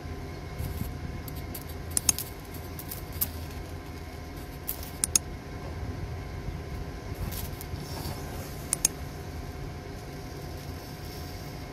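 Carbon rod arcing against a lead car-battery terminal post, melting lead to rebuild a broken post: sharp electric snaps and crackles in small clusters about two, three, five and nine seconds in, with a brief sizzle just before eight seconds, over a steady low hum.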